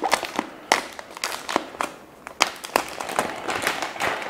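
Clear plastic protective film being peeled off an iMac screen, crackling and crinkling in quick, irregular snaps as it is pulled away.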